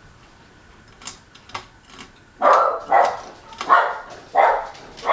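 Domestic dog barking repeatedly, about five barks a little over half a second apart, starting about two and a half seconds in.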